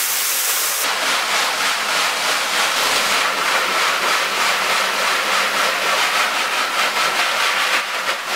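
Garden hose spray nozzle jetting water against the mesh of an emulsion-coated screen-printing screen, a steady hiss of spray as the unexposed, still-soft emulsion is washed out of the stencil.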